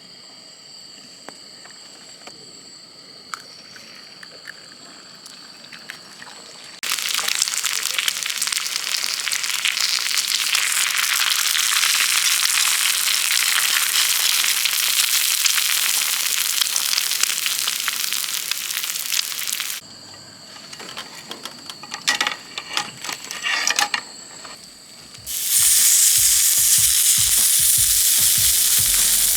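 Meat sizzling loudly in a hot pan. It starts about seven seconds in after a few faint clinks, falls away for a few seconds with some clattering, then sizzles loudly again near the end.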